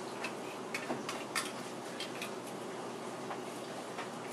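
Light, irregular clicks and taps of a spoon working through sliced potatoes in an enameled cast-iron Dutch oven.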